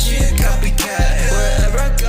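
Hip hop music with a heavy bass beat; the bass drops out briefly just before one second in.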